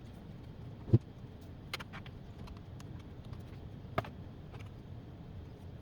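Light clicks and taps of soldering work on a circuit board, with one sharp tap about a second in and a fainter one near the middle, over a steady low hum.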